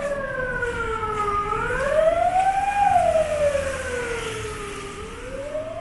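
Emergency vehicle siren wailing, its pitch rising and falling slowly, about one full rise and fall every three and a half seconds. It is loudest in the middle and fades a little near the end.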